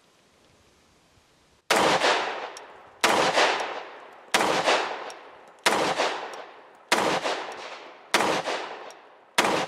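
Seven shots from a Kimber Ultra TLE II, a compact 1911 pistol in .45 ACP with a 3-inch barrel, fired at a steady pace about a second and a quarter apart, starting a couple of seconds in. Each report rings out and fades before the next.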